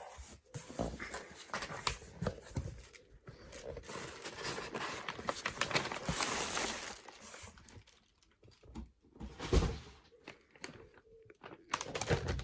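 Packaging being unwrapped by hand: dense rustling and crinkling for about eight seconds, then a few knocks and a thump as items are handled and set down.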